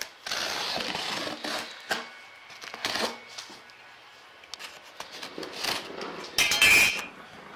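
Utility knife slitting the packing tape on a cardboard shipping box, in a few scraping strokes with cardboard rustling. The loudest, harshest stroke comes near the end.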